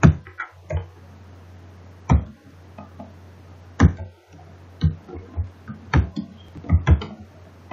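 Computer keyboard keystrokes, about ten irregular taps, some in quick pairs, over a steady low electrical hum.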